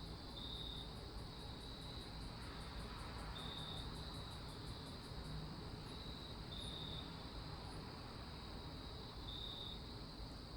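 Faint nature ambience of crickets: short chirps repeating every second or two, with a rapid high ticking insect trill from about one to four seconds in, over a soft steady hiss.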